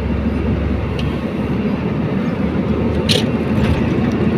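Truck engine running steadily on the move, heard from inside the cab, with one short hiss about three seconds in.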